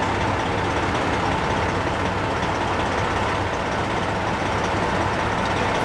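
Diesel engine of a stopped semi truck idling steadily.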